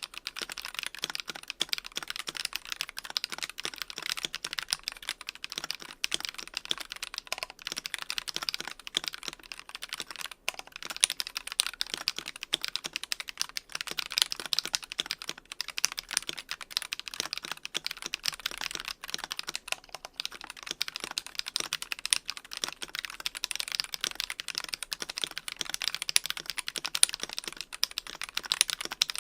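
Steady fast typing on a mechanical keyboard fitted with Glorious Fox linear switches: a dense, continuous run of key clacks.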